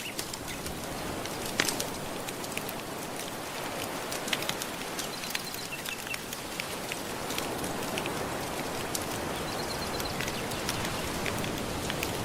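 Wood fire crackling with frequent small, sharp pops over a steady wash of gentle ocean waves.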